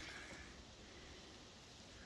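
Near silence, with faint soft sounds of hands pulling apart boiled sheep-head meat, a little stronger about the first half second.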